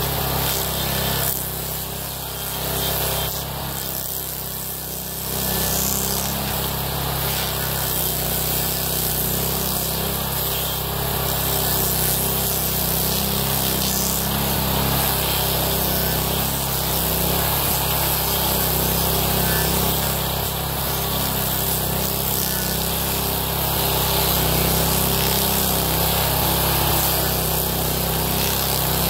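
Homemade stump grinder under load: a Honda GX390 single-cylinder engine runs steadily while its M1 Blueshark cutter wheel chews into a hardwood stump, with a dense hiss of flying chips. The cutting eases and the sound drops for a few seconds near the start, then it runs on evenly.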